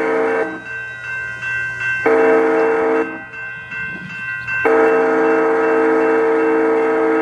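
Diesel locomotive air horn on a Union Pacific GE ES44AC (C45ACCTE) blowing the grade-crossing signal: a long blast ends about half a second in, a short blast follows about two seconds in, then a long blast begins about halfway through.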